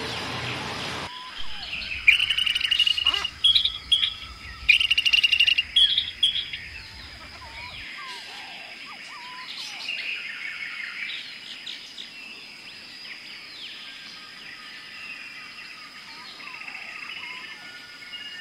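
Wild birds chirping and singing: a loud run of rapid, repeated chirps in the first few seconds, then softer scattered whistles and calls.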